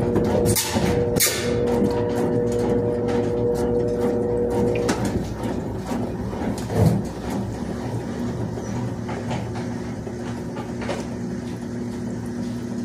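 Washing machine on its spin cycle, humming steadily, with scattered knocks and clatter of household handling. The highest part of the hum stops about five seconds in while the lower hum carries on.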